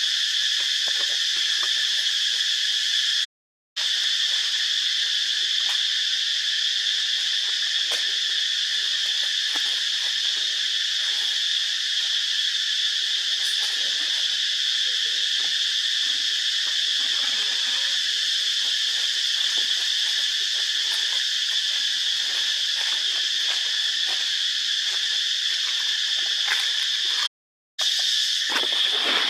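A loud, steady insect chorus drones without a break, with faint scattered rustles and ticks underneath. The sound cuts out completely twice for a moment, about three seconds in and near the end.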